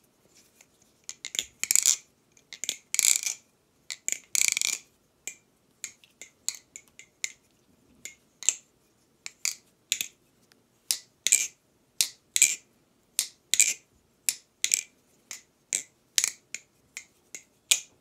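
Balisong (butterfly knife) trainer being flipped: sharp metallic clicks and clacks as the swinging handles strike the blade and each other, about one or two a second, with a few longer rattling clatters in the first five seconds. Its pivots are freshly tuned, and it sounds great.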